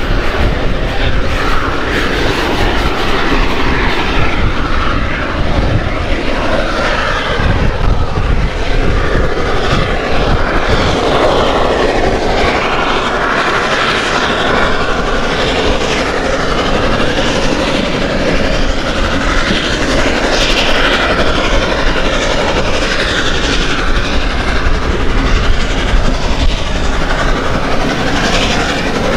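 Passenger train running behind Beyer-Garratt steam locomotive 6029, heard from an open carriage window. Steady wheel-on-rail noise from the carriages, with the locomotive working ahead.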